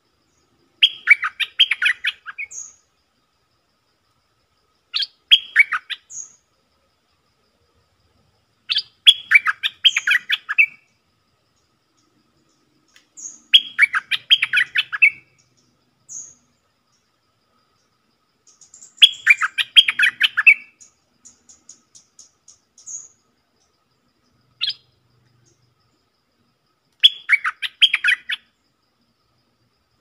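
Stripe-throated bulbul singing: short bubbly phrases of quick warbled notes, each about a second long and repeated every few seconds, with thin high single notes between them. The song is used as a lure to draw in wild birds of the same species.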